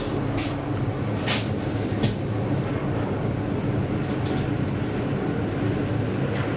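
Upgraded 1985 KONE inclined elevator car travelling along its sloping shaft: a steady running hum with a few short clicks and rattles.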